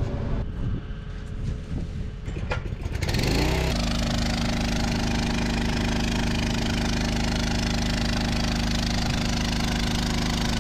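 A small engine-driven transfer pump starting up about three seconds in: its engine revs up quickly, then runs steadily at speed, filling the side dresser with 28% liquid nitrogen from the bulk tank. Before it starts there is a low engine rumble with a few clicks.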